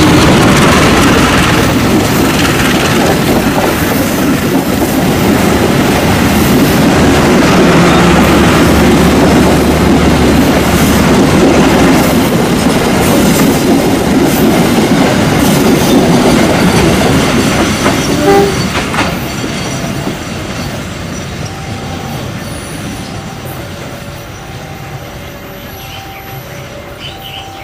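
Train passing close by at speed, its wheels clattering over the rail joints, loud for most of the stretch and then fading away steadily from about two-thirds of the way through.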